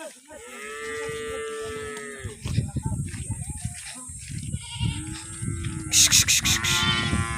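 Cows mooing: one long call, then two shorter calls near the end, over a low rumbling noise on the microphone, with a few sharp clicks about six seconds in.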